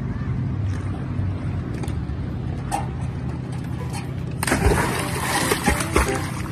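A retriever-type dog in a life jacket leaps off a dock and hits the lake with a loud splash about four and a half seconds in, then splashes and churns the water as it swims. A steady low rumble runs underneath before the splash.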